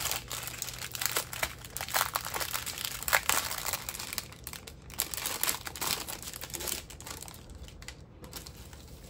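Plastic packaging crinkling as the small bags of diamond-painting drills are handled and opened. The crackling comes in uneven handfuls, busiest over the first few seconds and thinning out near the end.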